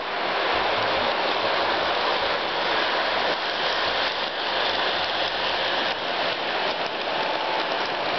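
Model electric passenger train running on a three-rail track loop, its wheels and motor giving a steady rushing hiss.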